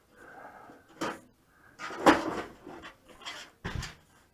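Handling noise from a PC case being moved and searched: a soft scrape, then four short knocks and clunks, the loudest about two seconds in.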